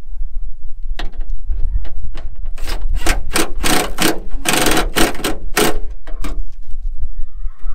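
Ratchet wrench tightening the spoiler bolts from under a car's trunk lid: an uneven run of short rasping ratchet strokes, about two or three a second, starting about a second in and stopping after about six seconds.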